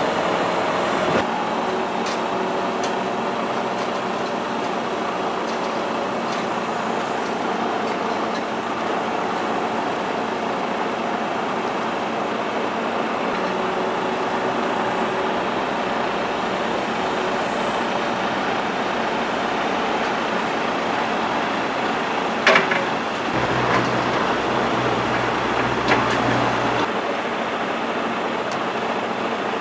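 Timber truck's diesel engine running steadily. Two sharp metallic knocks stand out about two-thirds of the way through, and a deeper low rumble joins for about three seconds after the first.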